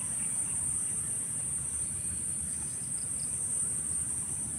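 Steady high-pitched chorus of insects, unbroken throughout, over a low rumble.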